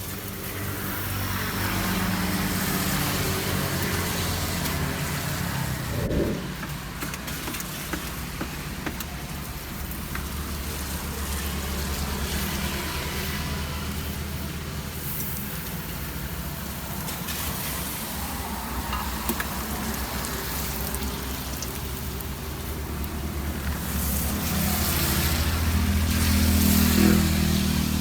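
Batter frying in hot oil in a street-stall wok, sizzling steadily, with motor-vehicle traffic running close by; engines swell loudest a few seconds in and again near the end.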